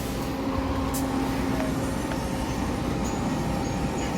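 Fully automatic HSS circular saw machine running: a steady machine hum and noise, with a short hiss about a second in.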